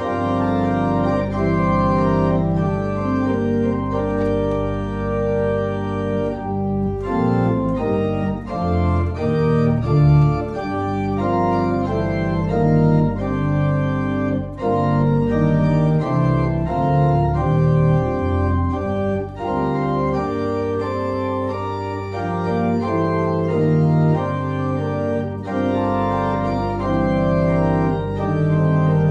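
Church organ playing the postlude after the benediction: sustained chords that change every second or so over a deep pedal bass.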